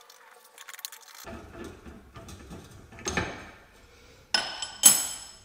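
Steel bearing puller being worked on a ball bearing in a gearbox's alloy housing: scraping and small knocks, one sharper knock about halfway, then two sharp metallic clinks with a high ringing near the end.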